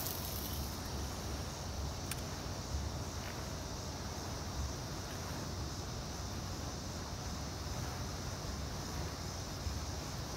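Insects chirring steadily in a high band, over a constant low rumble of outdoor background noise.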